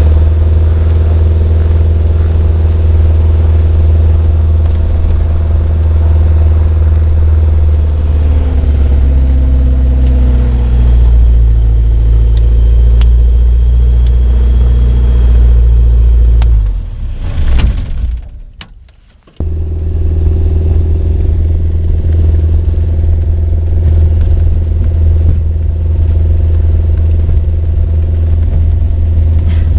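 Kitfox light aircraft's engine and propeller running steadily at taxi power, heard from inside the cockpit. The engine note steps up slightly about a third of the way in. The sound drops out abruptly for a second or two just past halfway, then resumes.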